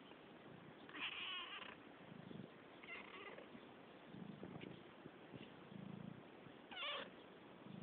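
Domestic cat vocalising: a loud warbling chirrup about a second in, a fainter one near three seconds, and a short wavering chirp near the end, with soft low sounds between.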